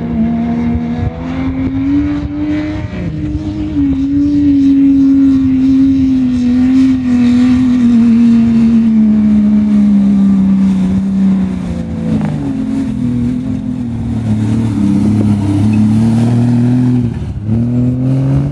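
An off-road 4x4's engine running hard at high revs. Its pitch sags slowly over several seconds, then drops lower about twelve seconds in and climbs again near the end.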